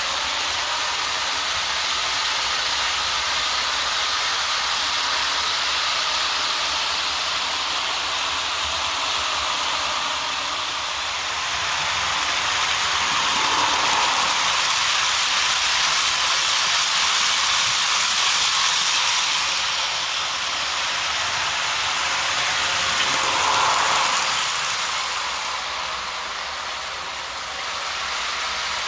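HO- and N-scale model trains running on the helix track: a steady whir and rattle of small electric locomotive motors and metal wheels on the rails. The sound swells as a train passes close by about halfway through, and briefly again later.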